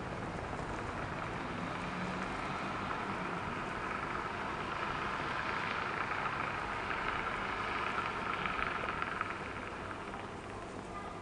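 Street traffic: a steady hiss of tyres and engines that swells to a peak about eight or nine seconds in, then fades.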